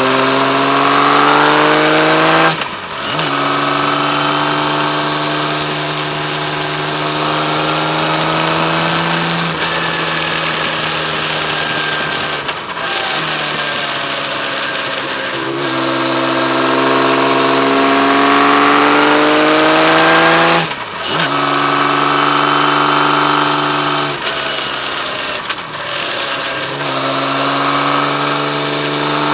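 Kawasaki Z1300's inline six-cylinder engine accelerating hard through the gears, its note rising steadily and then dropping sharply at each gear change, about five times, with one stretch where it eases off and the pitch falls.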